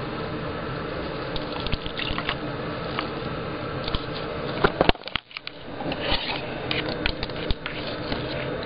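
A spoon stirring a mixture of white glue and water in a plastic cup, with wet, liquid sounds and repeated clicks of the spoon against the cup. There is a short lull about halfway through, then the stirring resumes.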